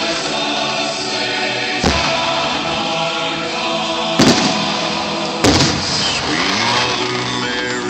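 Choral music playing, broken by three firework bangs about two, four and five and a half seconds in, the last two the loudest.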